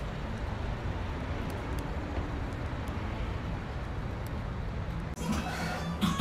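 Street ambience: a steady low rumble of traffic. About five seconds in it cuts abruptly to music.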